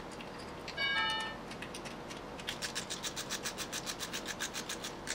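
A short squeaky tone about a second in, then a ratchet wrench clicking quickly and evenly, about eight clicks a second, as the intake manifold nuts are run down.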